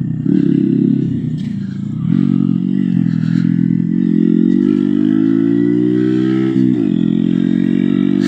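Honda Grom's 125 cc single-cylinder engine pulling away and accelerating through the gears. Its pitch climbs steadily for several seconds, then drops sharply at a gear change about two-thirds of the way through and holds steady.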